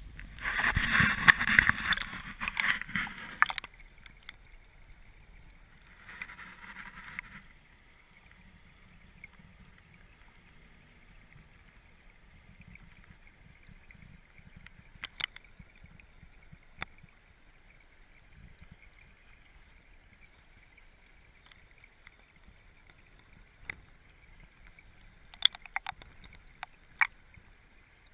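Stream water heard underwater, muffled: a loud burst of rushing, bubbling water in the first few seconds and a shorter one about six seconds in, then a low steady murmur. Scattered sharp clicks against the gravel bed come now and then, in a quick cluster near the end.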